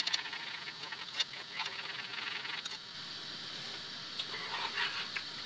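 A spoon stirring sauce in a saucepan, with a few light clicks of the spoon against the pan, over a steady hiss and bubbling from pans cooking on a gas hob.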